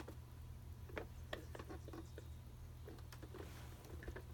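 Faint, irregular clicks and taps from handling a 1990 Mattel Mother Nature See 'n Say toy, about seven spread over a few seconds, over a low steady hum.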